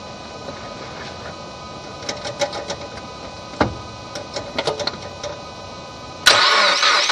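A few light clicks over a low hum, then near the end the 2014 Subaru WRX's turbocharged flat-four starts abruptly with a high, warbling squeal. It is a cold-start squeal that the owner cannot place, perhaps a bearing.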